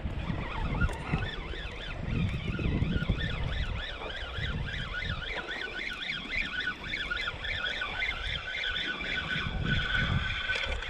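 Spinning reel being cranked steadily during a retrieve, its gears giving a whine whose pitch wavers quickly up and down with the turning handle, growing clearer a few seconds in.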